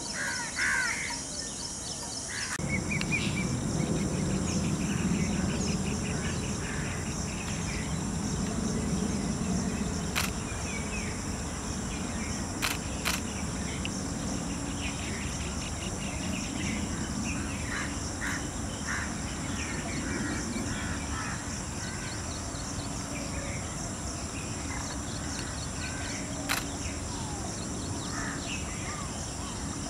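Outdoor scrubland ambience: a steady high drone of insects with scattered short bird calls and a low rumble. A few sharp clicks come through, and the background shifts abruptly a couple of seconds in.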